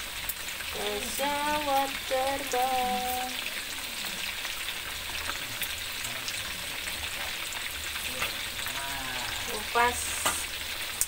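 Chicken pieces deep-frying in a wok of hot oil, a steady sizzle of bubbling oil.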